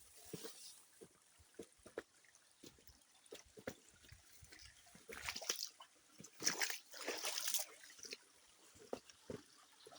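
Shallow stream water trickling, with scattered small knocks and several short splashes about five to seven and a half seconds in.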